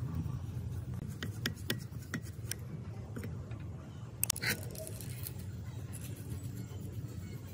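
Light metallic clicks and taps of a screwdriver and loose parts on a rusty overlock sewing machine's mechanism as it is taken apart: a scattering of clicks a second or two in, then a short cluster about four seconds in. A low steady rumble runs underneath.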